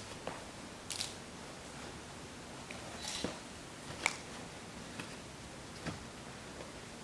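Quiet room tone with a few faint, scattered clicks and rustles, the sharpest about four seconds in.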